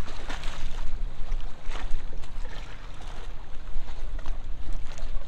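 Wind rumbling on the microphone over water lapping and sloshing, with a few irregular splashes.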